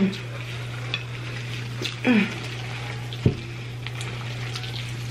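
Sticky, sauce-coated jajangmyeon noodles being stirred and tossed with chopsticks and a fork, making wet noises with a few light clicks of utensils on the bowls, over a steady low hum.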